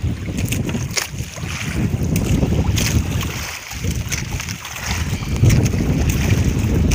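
Wind buffeting the microphone, a dense uneven low rumble with a few short knocks.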